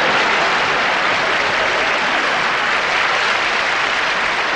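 Audience applauding, a loud, steady wash of clapping following a joke's punchline.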